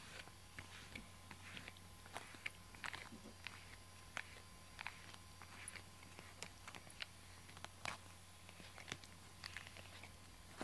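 Grooming brush raking through a cat's fur: faint, short scratchy strokes at an irregular pace, a few a second.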